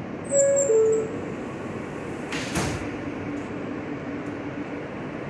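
R160 subway car door-closing chime, two falling notes (ding-dong). About two and a half seconds in, the doors slide shut and close with a thud, then a faint steady hum remains.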